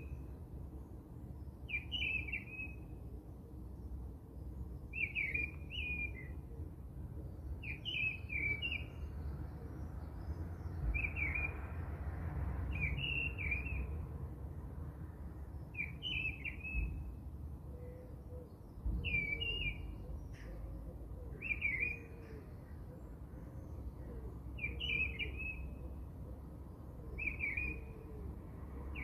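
A bird chirping the same short phrase over and over, every two to three seconds, over a low steady rumble.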